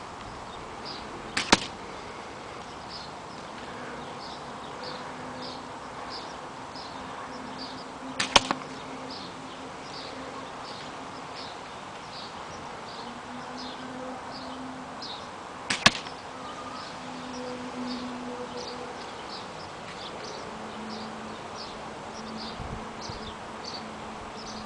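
An airsoft replica pistol firing single BB shots at a target: three sharp cracks, roughly seven seconds apart. A faint, regular high chirping about twice a second runs behind them.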